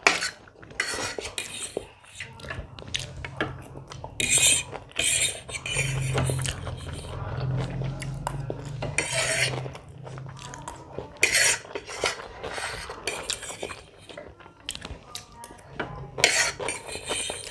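Cutlery clinking and scraping against a plate while eating homemade egg hakka noodles, in many scattered short clicks and scrapes.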